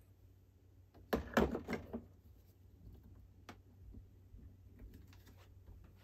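Metal portafilter being fitted and twisted into the group head of a Sincreative espresso machine: a cluster of metal clunks and scrapes about a second in, then a single sharp click a couple of seconds later and a few faint clicks near the end.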